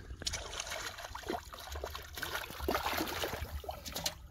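Shallow muddy water splashing and sloshing irregularly as a small child wades, stoops and grabs at a fish with his hands.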